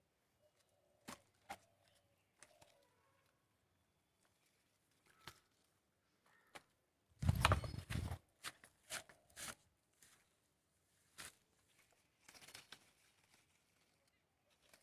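Faint scattered rustles and crunches of leaves and footsteps, with a louder rough rustling burst about seven seconds in.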